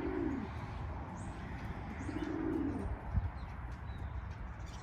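Racing pigeons cooing: two low, arching coos about two seconds apart, with a few faint high chirps between them.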